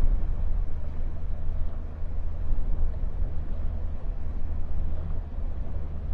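A boat's engine running steadily while under way, a low continuous rumble.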